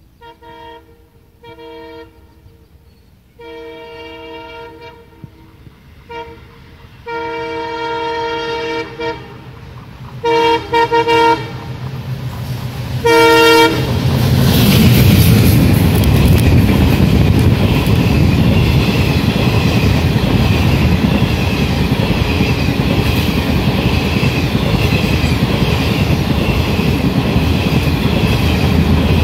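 WDM3D ALCO diesel locomotive approaching at speed, sounding its horn in a series of short and long blasts that grow steadily louder as it nears. About 14 seconds in, the locomotive passes close by with loud engine and wheel noise. The steady rumble and clatter of the express coaches running over the track follows.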